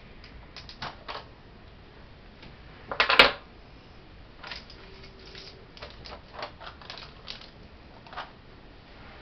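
Light clicks and taps of gloved hands handling a paper-lined plastic soap loaf mold and plastic cups: a dozen or so scattered knocks, with a louder clatter about three seconds in.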